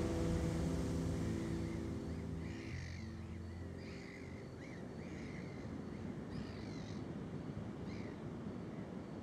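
A held low chord fades out over the first few seconds, leaving a steady rushing noise. From about two and a half seconds in, birds call several times with short, harsh cries.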